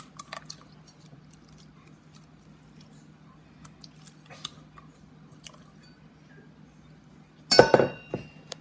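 Slime being handled and pulled out of a mixing bowl: faint scattered sticky clicks. About a second before the end comes a loud clatter with a brief ring, the bowl being knocked or set down.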